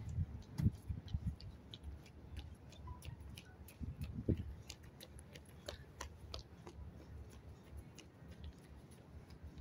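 Outdoor ambience: an uneven low rumble with many faint, scattered clicks.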